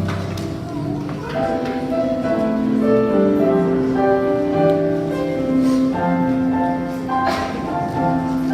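Instrumental offering music: a slow keyboard melody over sustained chords, with a few brief noises from the room.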